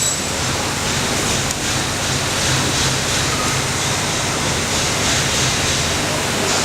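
Automatic CNC pocket-sewing machine running: a steady, even hiss with a faint low hum underneath.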